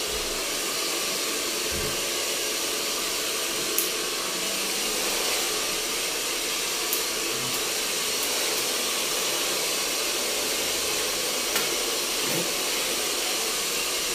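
Hair dryer running with a steady hiss, with three faint snips of scissors cutting through a thick ponytail.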